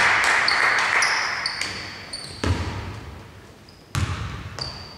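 A basketball bouncing on the hardwood court, two sharp echoing bounces about two and a half and four seconds in, with short high sneaker squeaks. A loud hiss-like noise fades out over the first two seconds.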